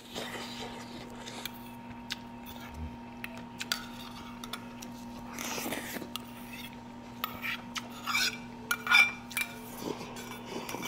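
Cutlery clinking and tapping against bowls and dishes during a meal: scattered light clicks, with a cluster of sharper, louder clinks about eight to nine seconds in, over a steady low background hum.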